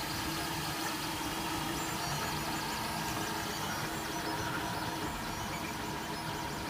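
Kora Midi 3D printer running a print: its motors and fans whir steadily, with a few faint held tones over an even hum.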